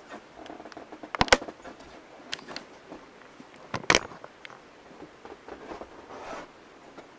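Handling noise from a camera being picked up and carried: scattered sharp clicks and knocks with faint rustling, a quick double click a little over a second in and the loudest knock about four seconds in.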